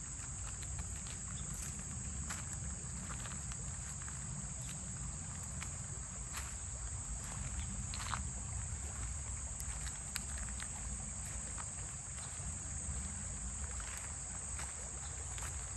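Steady high-pitched drone of insects over a constant low rumble of the flowing river, with a few faint scattered ticks.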